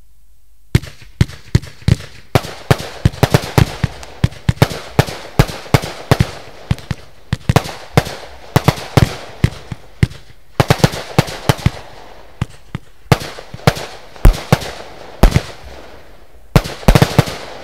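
25 mm compound firework cake firing a rapid string of hard bangs, a few per second, with crackle between them. The bangs start about a second in and run in quick volleys, with a short lull a little past the middle and a last tight cluster near the end.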